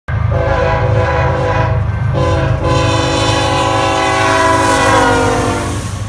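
Diesel freight locomotive's multi-chime air horn blowing long, short, long, the end of a grade-crossing signal, over the low rumble of the locomotive. The horn chord falls in pitch near the end as the locomotive passes.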